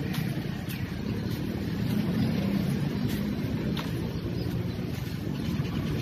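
Steady low rumble of vehicle engines and traffic, with a few faint clicks.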